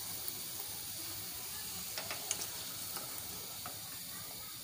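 A puri deep-frying in hot oil, a steady sizzle, with a few light clicks from about two seconds in.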